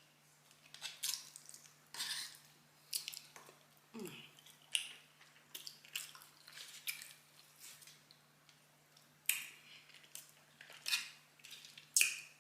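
Close-miked eating sounds: irregular wet smacks and clicks of chewing, roughly one every half second to second, with faint clinks of cutlery on dishes.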